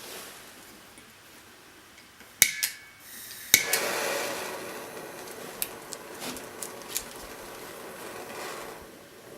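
Two sharp metallic clicks about a second apart, the second followed by the steady hiss of a handheld torch flame for about five seconds, which fades out near the end.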